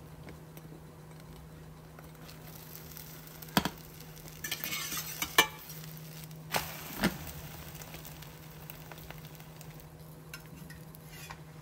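Egg crepe sizzling quietly in a stainless steel frying pan while a fork and then a metal spatula scrape and tap against the pan, with a few sharp metal clinks and a short stretch of scraping in the middle.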